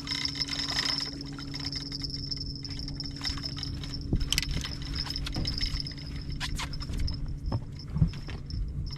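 Water splashing and sloshing at a fishing boat as a fish is lifted, over a steady low hum and a thin high whine. Several sharp knocks come from about four seconds in, the loudest near the end.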